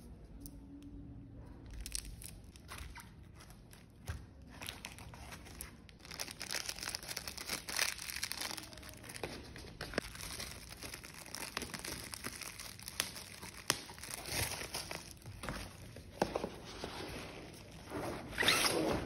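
Plastic bubble wrap crinkling and rustling as it is handled, with small clicks and taps from a cardboard box and its foam insert. The handling is quieter for the first few seconds, and the loudest rustle comes near the end as the box is handled shut.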